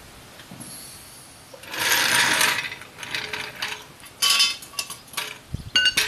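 Floor jack and steel jack stands being handled and lifted. There is a burst of rattling noise about two seconds in, then metal clinks and a few sharp clanks that ring, close together near the end.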